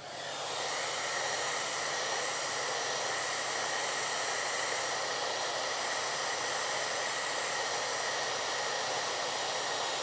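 Handheld hair dryer switched on at high, coming up to full speed within about half a second and then running steadily: a rush of blown air with a faint high whine, aimed across a hand.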